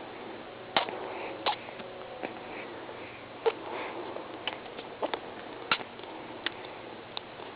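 Close-up eating noises: wet chewing clicks and smacks at an irregular pace over steady snuffling breath.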